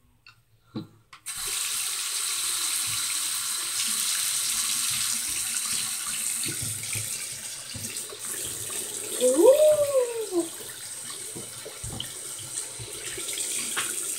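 Tap water running into a sink, turned on with a click about a second in, with a steady rushing hiss that gets quieter about ten seconds in. Just before that, a short pitched sound rises and falls in pitch over the water.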